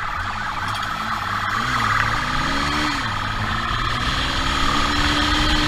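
Motorcycle engine running hard under the rider, its pitch rising and falling as the throttle opens and closes: it climbs about two seconds in, drops near the three-second mark, then climbs again and holds before falling near the end. A steady rush of riding noise sits underneath.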